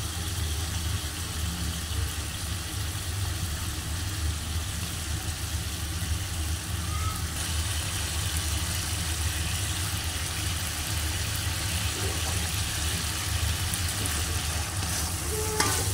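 Squid in sauce simmering in an aluminium wok, a steady faint sizzle over a continuous low hum.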